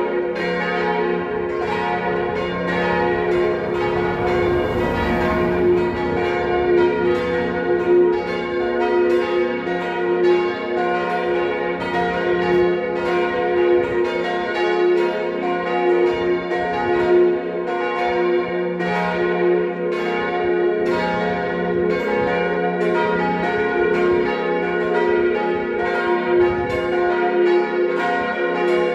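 Peal of four church bells, tuned C, B-flat, A-flat and F, ringing together from the tower. The strokes fall steadily and overlap into a continuous ringing that does not let up.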